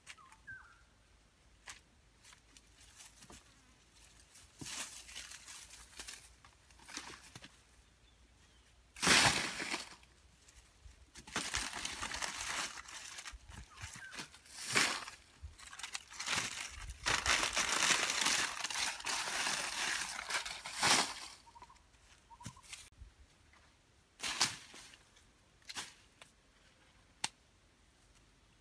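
Dry leaves and twigs rustling and crackling under bare feet and hands, in several bursts. The loudest comes about nine seconds in, and a few sharp clicks follow near the end.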